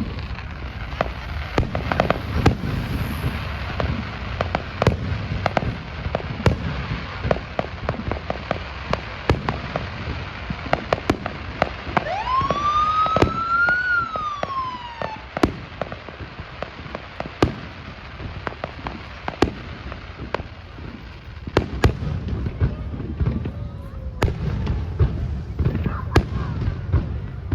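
Fireworks display: a rapid run of sharp bangs and crackles over a low rumble. About halfway through, a loud whistling tone rises and then falls over about three seconds.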